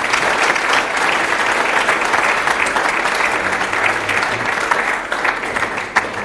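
Audience applauding: dense, steady clapping from many hands that begins to thin out near the end.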